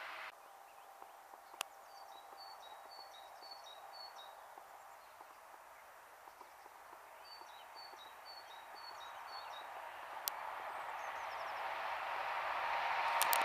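A small songbird sings two short runs of repeated chirps, with two sharp clicks. Over the last few seconds an approaching Siemens ES64U4 electric locomotive and its passenger coaches bring a steadily rising rolling noise.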